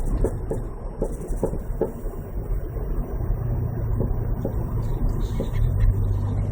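Mazda Protege5 heard with a steady low road rumble and irregular short knocks, a couple a second in the first two seconds and sparser after: the rear driver-side noise the owner is trying to track down.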